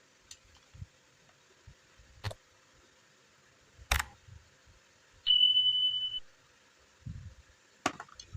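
A few sharp clicks spaced a couple of seconds apart, and one steady high-pitched electronic beep lasting about a second, midway between them.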